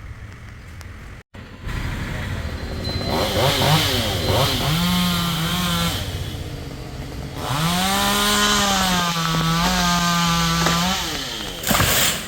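Stihl two-stroke chainsaw revved up twice to high speed, pitch rising and then holding as it cuts, and dropping back between the two runs. A short, loud noisy burst comes near the end.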